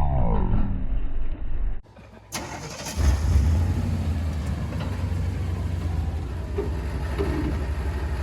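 Pickup truck engine running with a steady low drone while towing. The sound drops out briefly about two seconds in, then the engine comes back in steadily.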